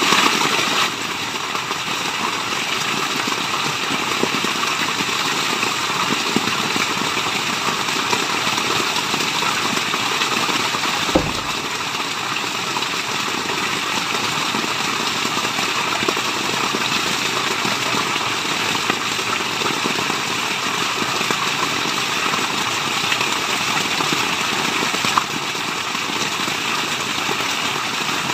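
Steady rushing water of a waterfall, an even hiss-like wash with no pauses, a little louder in the first second. One short knock sounds about eleven seconds in.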